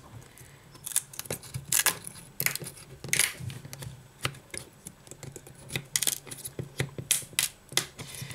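Metal pry tools clicking and scraping against the glass back and metal frame of a Samsung Galaxy S6 edge as the heated back cover is pried loose: irregular sharp ticks and clicks, a few louder snaps among them, over a faint steady low hum.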